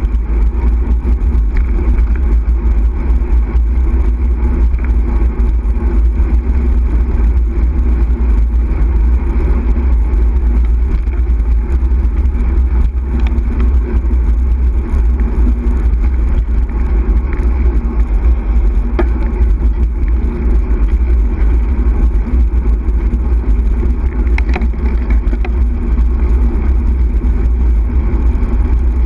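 Wind buffeting the microphone of a camera on a moving bicycle: a loud, steady low rumble, with road noise from the tyres on tarmac and a few faint clicks.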